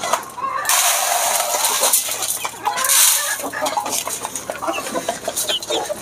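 Desi chickens clucking around a metal feed pan, with short clicks as they peck at the grain. A loud rushing hiss runs from about a second in to about three seconds.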